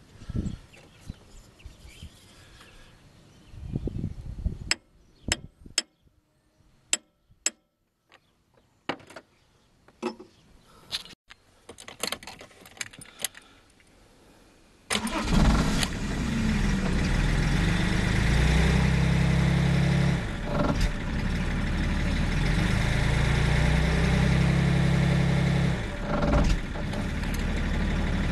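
A metal tool taps gently on the VP37 diesel injection pump's top about a dozen times. About halfway through, the BMW 525td's straight-six turbodiesel starts and is revved twice, each time dropping back to idle with a little overshoot and roughness, a sign that the pump's electronics pack position still needs adjusting.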